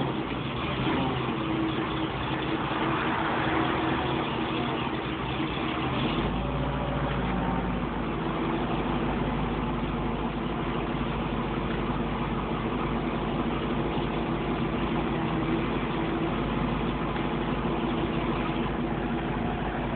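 Tow truck's engine idling steadily, with a lower hum growing stronger about six seconds in.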